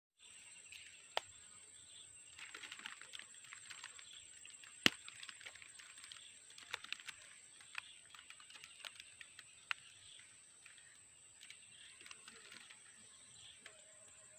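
Swamp ambience: a steady high-pitched insect drone, with scattered sharp clicks and ticks; the loudest click comes about five seconds in.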